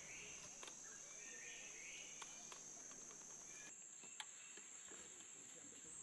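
Faint outdoor ambience: a steady high-pitched insect drone, with a few faint chirps in the first half and a couple of small clicks.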